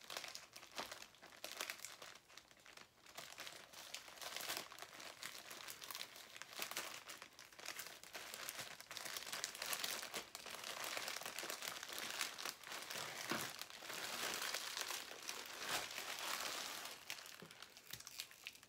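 Plastic poly mailer bag crinkling and rustling continuously as it is handled and a rolled tube is slid out of it. The crackling is busiest in the second half.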